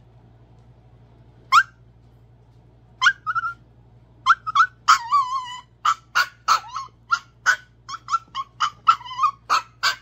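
Tiny Chihuahua yipping: one sharp high-pitched yip about a second and a half in, another at three seconds, then a rapid string of short yips and whiny barks, about two a second, a few of them drawn out and wavering.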